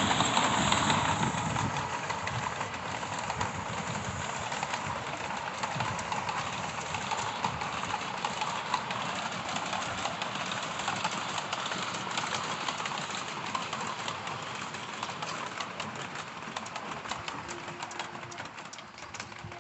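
Miniature steam train passing: a hiss of steam from the locomotive for about the first second, then the carriages rolling by with a rapid clacking of small wheels over the rails, slowly fading away.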